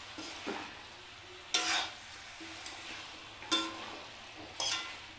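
A spoon stirring potatoes and bathua greens in an aluminium kadhai, knocking the side of the pan in three ringing clinks, with a softer knock about half a second in, over a faint sizzle on low flame.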